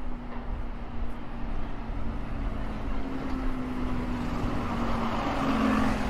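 A double-decker bus drives past. Its steady engine drone and tyre noise build up and are loudest as it goes by, near the end.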